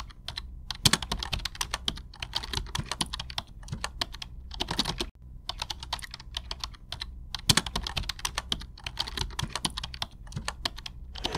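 Rapid, irregular light clicks and taps over a low steady hum, pausing briefly about five seconds in.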